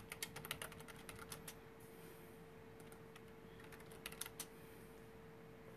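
Faint quick clicking in two short bursts, one over the first second and a half and another around four seconds in, over a steady faint hum.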